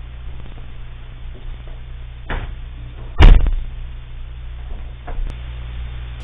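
A hotel room door shutting with a heavy thud about three seconds in, a lighter knock just before it, over the steady low hum of the hidden camera's recording.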